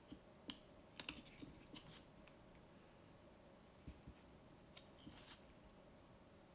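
Paper pages of a small paperback photobook being bent and turned by hand: faint snapping clicks and flutters, in a cluster about a second in and another near the end, with a couple of soft knocks in between.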